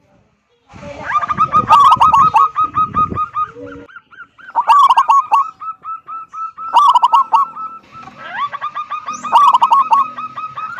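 Zebra dove (perkutut) singing loud bouts of rapid staccato cooing notes, about four bouts with short gaps between them. A low rumble of noise sits under the first bout.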